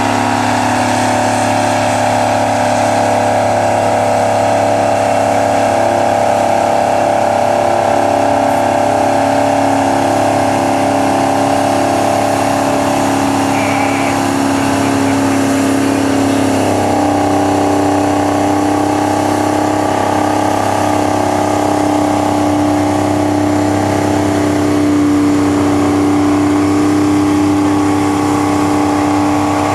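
Big articulated four-wheel-drive tractor's diesel engine running hard under heavy load while pulling a weight-transfer sled, holding a steady, even pitch that steps up slightly about halfway through and again near the end.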